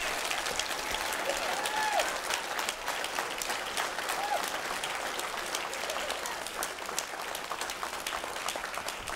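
Congregation applauding, many hands clapping together, with a couple of short calls from the crowd about two and four seconds in; the applause slowly dies down toward the end.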